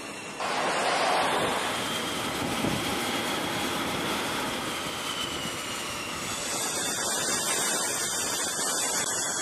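F/A-18 Hornet jet engines running: a steady rush of noise that comes in suddenly about half a second in, with a high whine joining it about two-thirds of the way through.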